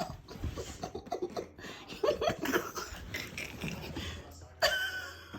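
A person laughing softly in short, broken bursts.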